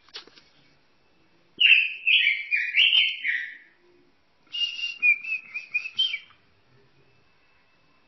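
A robin singing: two phrases of quickly changing clear whistled notes, the first starting about a second and a half in and the second soon after, with a short click right at the start.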